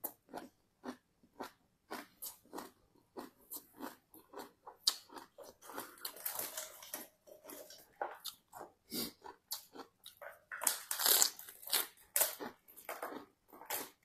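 Close-up chewing of crisp raw vegetables and lettuce, a steady run of irregular wet crunches. About five seconds in, and again around eleven seconds, it grows denser and louder with crisp leaf crunching.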